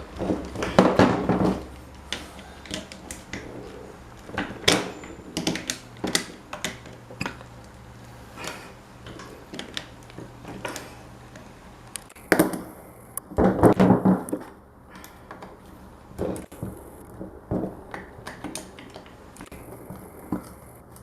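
Irregular clicks, knocks and clatter of tools and parts being handled during hands-on fan restoration work, with two busier bursts of clatter about a second in and about thirteen seconds in.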